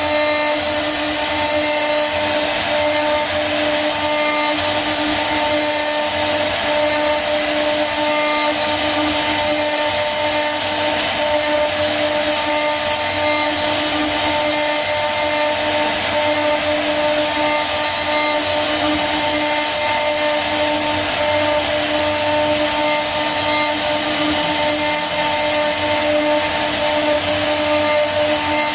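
CNC router spindle running at high speed with a steady whine while its bit carves a relief pattern into a wooden panel.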